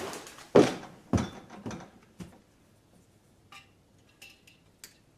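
Several sharp knocks and thuds of tools and parts being handled, the loudest about half a second in and again about a second in, followed by a few light clicks.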